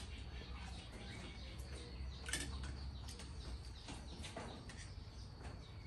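Quiet outdoor background with faint bird chirps and a few light clinks of spoons against plates and bowls, about two seconds in and again past four seconds.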